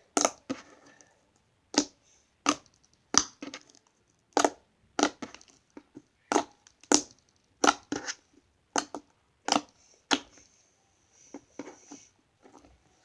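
Glossy slime being squeezed and poked by hand, giving sharp clicking pops about one to two times a second; the pops grow fainter over the last couple of seconds.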